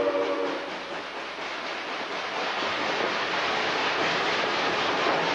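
A steam locomotive's chime whistle cuts off about half a second in, leaving the steady rushing noise of the moving train, which builds slowly again toward the end.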